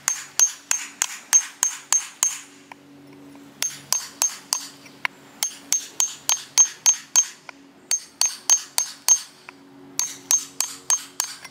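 Metal hammer tapping rapidly on shale to split it open: sharp strikes about three a second, each with a brief metallic ring, in several runs broken by short pauses.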